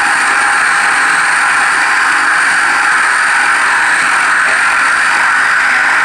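Power drill running steadily under load, a 1-inch bit boring the bolt hole into the edge of a wooden door through a lock-installation jig.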